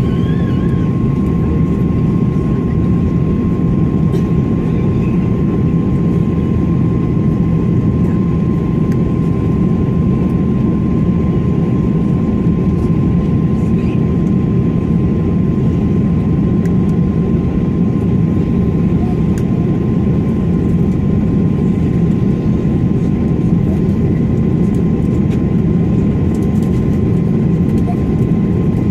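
Steady cabin noise inside an Airbus A330-300 airliner: a loud, even rumble of engines and airflow with a thin steady whine above it.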